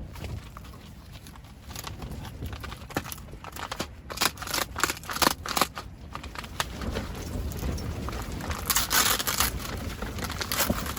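Irregular sharp clicks and knocks, as of small objects being handled, thickest in the middle, followed by a short rustle near the end.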